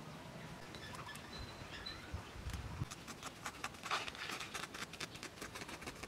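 A terry towel being patted and smoothed by hand, with soft rustling and a quick run of small scratchy clicks in the second half.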